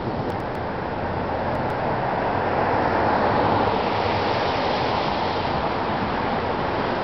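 Road traffic: cars passing close by, a steady rushing noise that swells about two to three seconds in.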